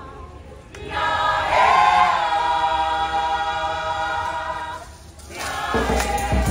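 Mixed-voice choir singing without accompaniment in close harmony: a long held chord swells about a second in and fades out near five seconds. The singing then comes back with a beat of low thuds underneath.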